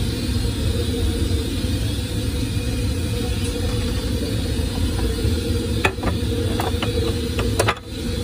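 Steady low rumble of background street noise, with a few short clicks and knocks a few seconds before the end.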